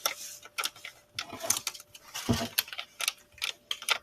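Hands kneading sticky glitter slime, giving a run of quick, irregular clicks and crackles.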